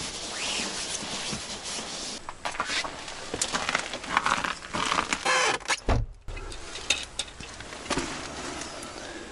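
A nylon sleeping bag rustling as it is rolled up, followed by a run of scrapes, clatters and knocks from things being handled and moved, with a heavy bump about six seconds in.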